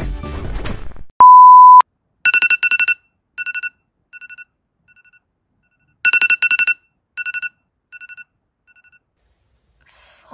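Upbeat music cuts off about a second in, followed by one loud steady beep. Then an alarm clock's beeping: bursts of quick two-pitched beeps that grow fainter, the pattern starting over about four seconds later, the morning wake-up alarm.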